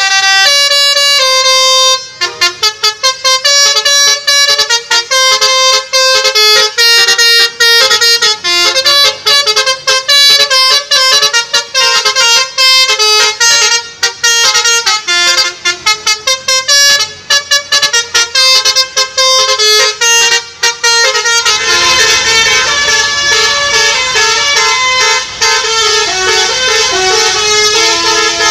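Basuri musical bus horn (telolet) playing a loud melody of quick, choppy notes. About 21 seconds in it changes to longer, overlapping notes over outdoor background noise.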